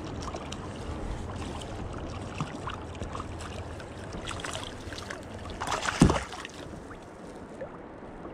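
Water lapping against a small inflatable boat, with small ticks and creaks. About six seconds in there is one sudden loud thump.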